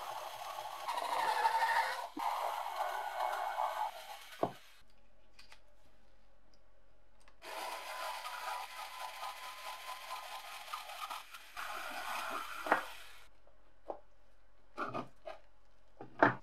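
Small electric screwdriver whirring in two spells of a few seconds each as it backs out the corner screws of a LiPo charger's metal case, then a few sharp clicks near the end.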